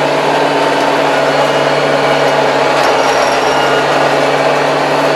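Diesel engine of a 75 hp tractor running steadily under load while it drives a rotary tiller through tall weeds, heard from inside the cab as a constant low drone.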